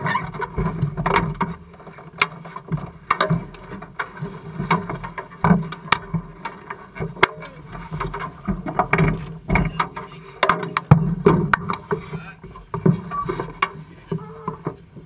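Irregular knocks, clunks and rattles as the occupants unbuckle their harnesses and climb out of a rock bouncer's steel tube-frame cab, bumping against the bars and seats.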